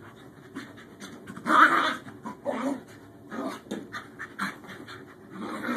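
Two Scottish terriers play-fighting, panting and giving short vocal sounds in irregular bursts; the loudest comes about one and a half seconds in.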